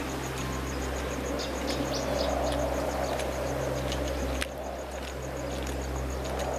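Outdoor ambience of insects chirping in a steady pulse of about five beats a second, with a few short bird chirps over a low steady hum. The sound changes abruptly about four and a half seconds in.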